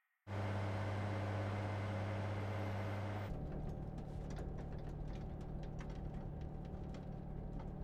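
Bus engine running, heard from inside the cabin: a steady low hum that starts abruptly and changes to a lower, rougher rumble about three seconds in, with faint scattered clicks and rattles.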